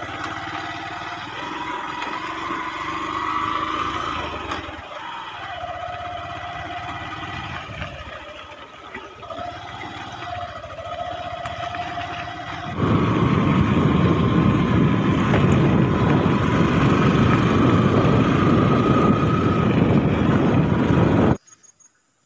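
Motorcycle engine running while riding along a rough dirt road, its pitch rising and falling. About 13 seconds in, a loud, even rushing noise takes over, then cuts off abruptly shortly before the end.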